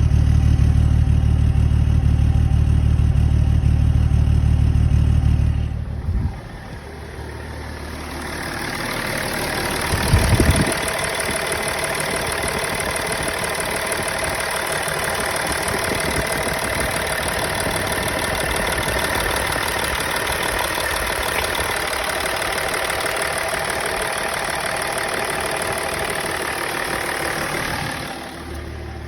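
Car engine idling, its sound changing character about six seconds in and changing back near the end. It has a misfire that the owner ties to the mass airflow sensor being plugged in.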